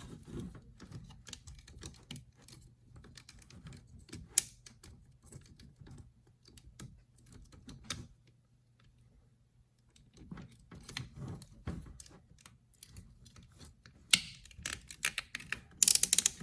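Hard plastic parts of a transforming robot figure clicking and snapping as they are handled and folded into place, in irregular small clicks with a run of louder clicks near the end.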